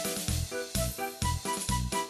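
Dance music accompanying a stage routine, with a quick steady beat of about four pulses a second under a bright melody.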